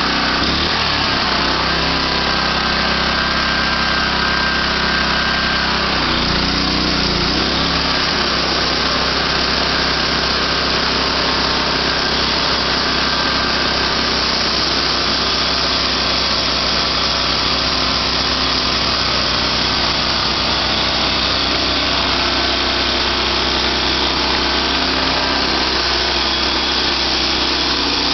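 Small engine of a homemade band sawmill running steadily, with brief shifts in pitch about six seconds in and again near the end.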